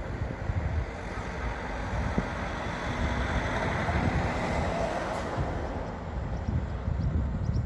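Truck-mounted drill rig's engine and machinery running in an uneven low rumble, swelling a little midway.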